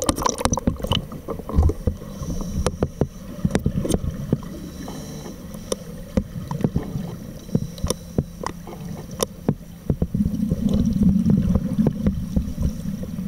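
Underwater in a swimming pool: a muffled low rumble with scattered sharp clicks and knocks, growing into a louder low burbling from about ten seconds in, the sound of scuba divers' exhaled bubbles from their regulators.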